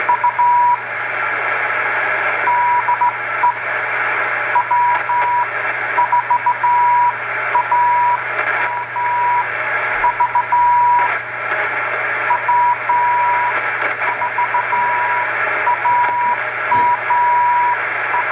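Morse code (CW) on the 40-metre ham band heard through a Drake 2-C shortwave receiver: a single tone of about 1 kHz keyed in dots and dashes, over a constant hiss of band noise and a low steady hum.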